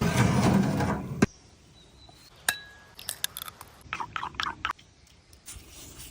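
Cookware and utensils being handled: about a second of rough scraping noise, a sharp knock, then a ringing clink and a run of light clicks and taps.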